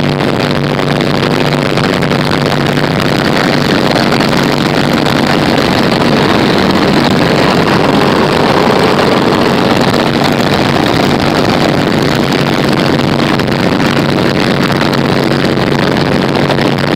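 Small single-engine airplane in flight, heard from inside the cockpit: a steady piston-engine and propeller drone with rushing air over it.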